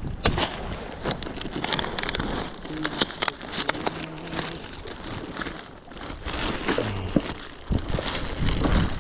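Clear plastic zip-lock bags crinkling and rustling as hands rummage through a backpack of fishing tackle, a steady stream of small crackles.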